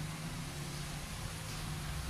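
Room tone: a steady low hiss with a faint hum underneath, no distinct event.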